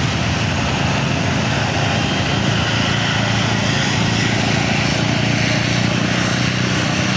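Diesel engine of a large tour bus running close by, a steady deep drone with no change in pitch.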